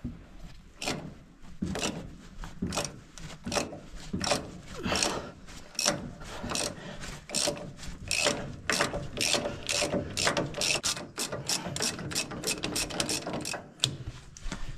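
Hand ratchet wrench clicking in repeated back-and-forth strokes as bolts on the engine mount are loosened. The strokes are about a second apart at first and quicken to about three a second in the second half.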